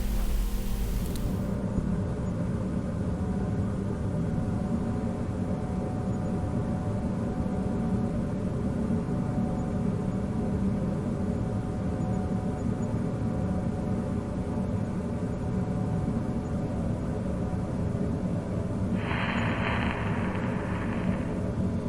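A low, steady rumbling drone with sustained tones, like a dark ambient soundscape. A hissing noise rises over it for about two seconds near the end.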